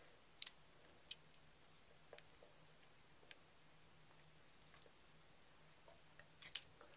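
Small sharp clicks of KWA M1911 airsoft pistol parts as the beavertail grip safety and thumb safety are worked into the frame by hand. There are two distinct clicks in the first second or so, a faint one near the middle and a quick cluster near the end, over near silence.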